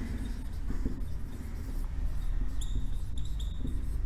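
Marker pen squeaking on a whiteboard while words are written, with several short high squeaks in the second half.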